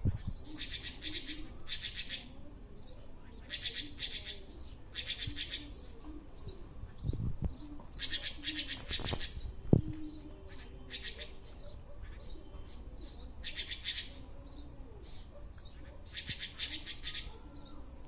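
Red-billed blue magpie calling: short bursts of rapid chattering notes, about eight phrases with pauses of one to four seconds between them. Two low thumps come about seven and ten seconds in, the second one the loudest sound.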